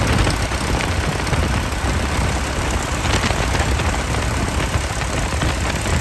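Titan TMX-360 four-cylinder aircraft engine idling with the propeller turning, running rough on its first start after a top overhaul.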